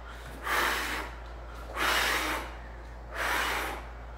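A woman breathing hard from exertion during push-ups: three forceful breaths, evenly spaced about a second and a quarter apart.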